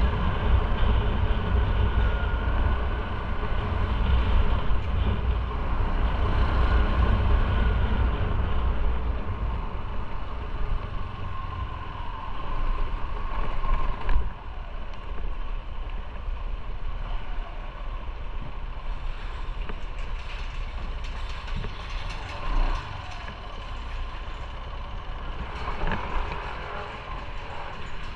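Motorcycle running on the road, with a heavy low rumble and a wandering engine note; the rumble and overall level ease off about halfway through, with a sharp click at that point.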